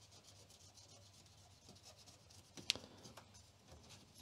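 Cotton swab wet with isopropyl alcohol scrubbing a computer circuit board clean: a faint scratchy rubbing, with one sharper click a little over halfway through.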